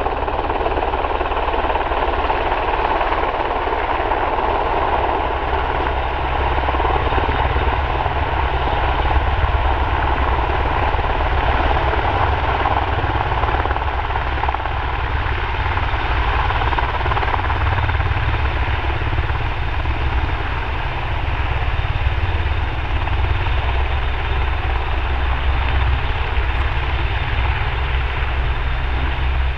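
EH101 Merlin helicopter hovering close to the ground and setting down: a steady, rapid low beat from the main rotor with the rush of rotor wash and a thin high whine from its three turboshaft engines.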